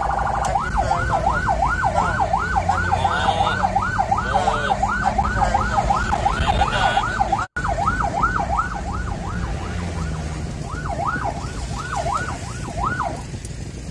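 Ambulance siren on fast yelp, wailing up and down about three times a second, with a brief break about ten seconds in. It stops shortly before the end. Low engine and road rumble runs underneath.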